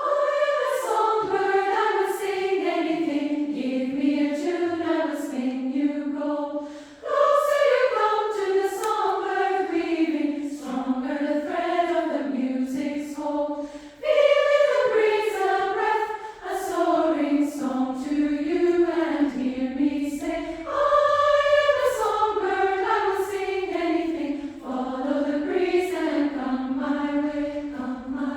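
Women's choir singing in three upper-voice parts (SSA), in phrases that each start high and step downward, with short breaths between them about every seven seconds.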